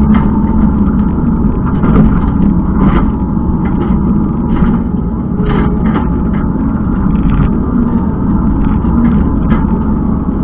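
Kubota skid steer's diesel engine running steadily under load while working, with scattered short clanks and rattles over the drone.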